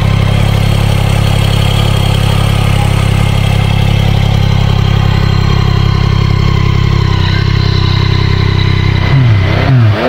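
Yamaha MT-09's inline three-cylinder engine idling steadily through its stock exhaust, then blipped on the throttle a couple of times near the end, the pitch sweeping up and down with each rev.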